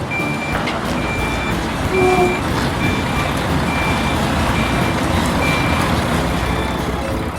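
Tow truck reversing alarm beeping about once a second over a steady engine rumble; the beeps stop about six seconds in.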